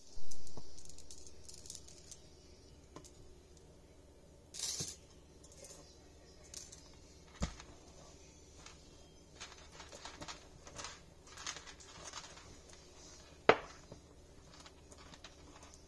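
Handling noise from faux fur rustling and a wire lampshade frame clicking and tapping as hands work the fur around it. A loud knock comes right at the start, a sharp click about halfway, and another sharp click near the end.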